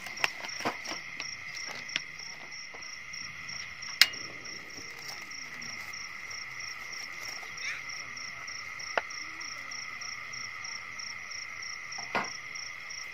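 Night insects chirping steadily, a continuous high trill with a faster pulsing call above it. A few light clicks and knocks from utensils on the table, and one sharp click about four seconds in as the portable butane stove is lit.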